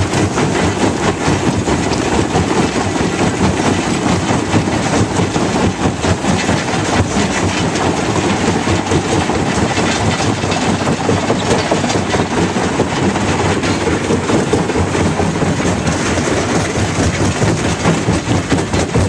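Fintec 1107 mobile jaw crusher running under load, crushing limestone: a steady machine and engine noise with a dense, continuous rattle and knocking of rock.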